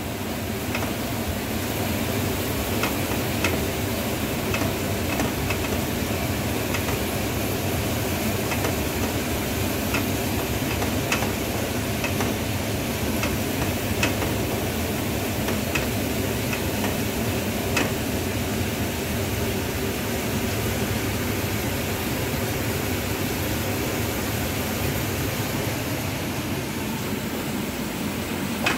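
Onions, tomatoes and spices frying in a pan and being stirred with a spatula: a steady sizzle and hiss, with now and then a sharp knock of the spatula against the pan.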